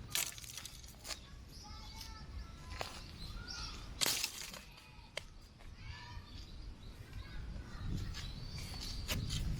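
Birds chirping in short repeated calls over a steady low rumble of wind on the microphone, with a few sharp clicks.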